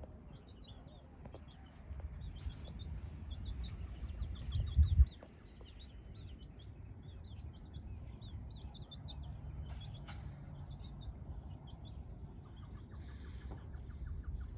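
Birds chirping in many quick, high notes, over a low rumble of wind on the microphone, with a loud low thump about five seconds in.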